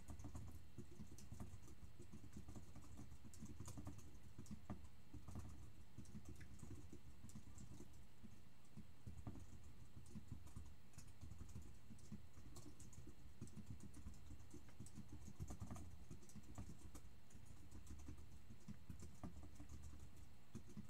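Typing on a computer keyboard: scattered light key clicks over a steady low hum.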